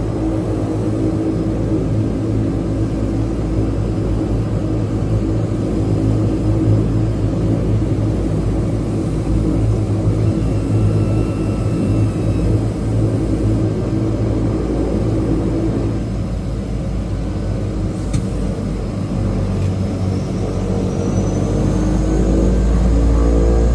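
The floatplane's Pratt & Whitney PT6A turboprop engines and propellers are running steadily, heard from inside the cabin. Near the end the power comes up: the sound grows louder with a rising whine, and the plane begins its takeoff run across the water.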